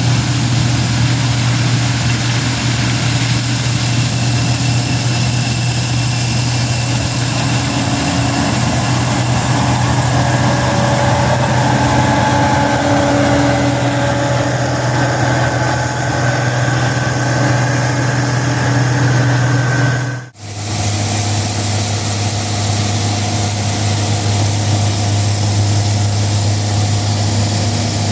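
Farm harvesting machine's diesel engine running steadily with a deep, continuous drone and faint whines above it. About two-thirds of the way through the sound drops out briefly and resumes at a slightly lower hum.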